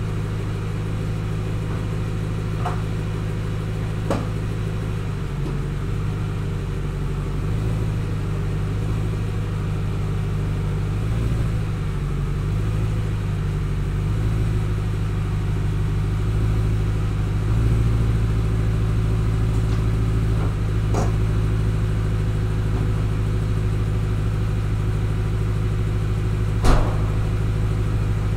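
BMW E92 M3's S65 V8 idling steadily through its stock exhaust while warming up after a cold start, the idle wavering slightly now and then. A sharp click near the end.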